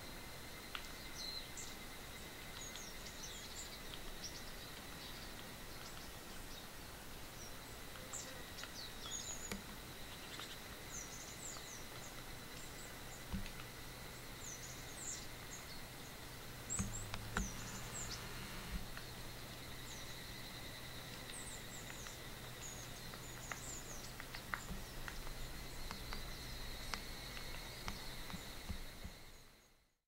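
Thin, high, short chirps and contact calls from small birds of a mixed flock of tits and woodpecker, scattered irregularly over a steady insect drone. It fades out near the end.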